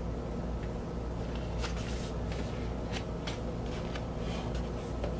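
Cardboard gatefold record jacket being handled, with several short papery rustles and scrapes in the first few seconds, over a steady low hum.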